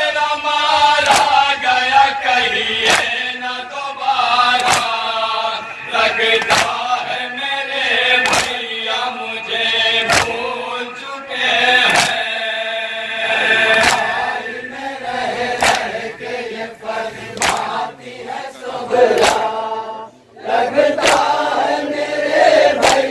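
Men's voices chanting a Shia nauha (mourning lament) together, led by one reciter at a microphone, with regular sharp slaps of matam, hands beating on chests, every second or two. The chanting drops out briefly about twenty seconds in, then resumes.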